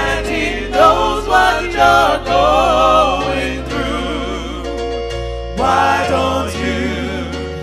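Gospel song: voices singing with vibrato over steady bass notes that change every second or so.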